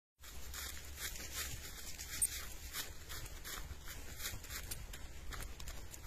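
Footsteps crunching through dry leaf litter at a walking pace, about two to three crackly steps a second, over a steady low rumble, with one sharper click a little after two seconds.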